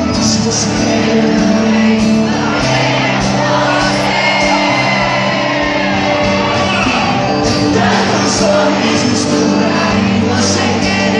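Live band playing loudly in a hall: a male singer on a microphone over accordion, acoustic guitar and drums, picked up from among the audience.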